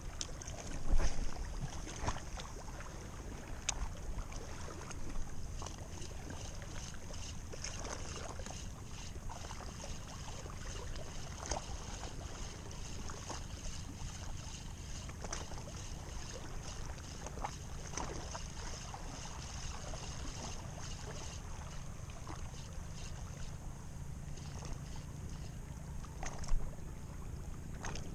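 Steady wind on the microphone and sea washing at the shore, with scattered clicks and knocks from a spinning reel being cast and wound. The loudest moment is a short burst about a second in.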